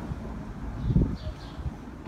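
Low rumble of wind on the microphone, with one dull thump about a second in.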